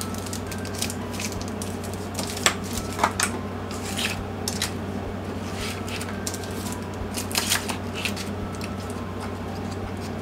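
Scattered light clicks, taps and rustles of cosmetic packaging and products being handled on a table, over a steady low hum.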